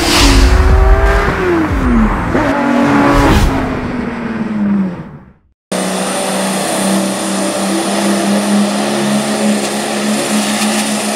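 A funny truck's racing engine revs high and falls off twice, then dies away. After a cut it runs at a steady idle with a faint high whine.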